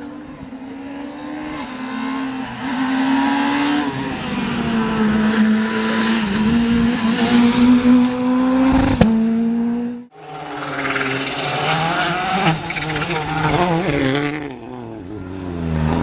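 Rally car engines at high revs on a stage. One car's engine climbs to a high, steady note as it passes, with a sharp crack about nine seconds in. After a sudden cut, another rally car's engine revs up and down.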